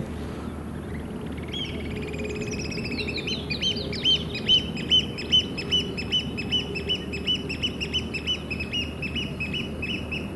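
A bird calling a long series of short repeated high notes, about two to three a second, loudest around four to five seconds in and gradually weakening toward the end.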